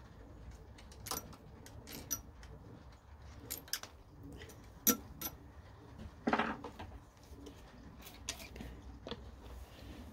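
Mini mill running a hole saw through an aluminium plate: a low steady motor hum with irregular sharp metallic clicks and ticks as the aluminium chips fly off and strike nearby surfaces.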